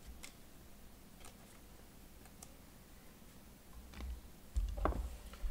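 Faint scattered clicks of trading cards and a cardboard blaster box being handled on a tabletop, with a few dull low bumps near the end as things are set down and picked up.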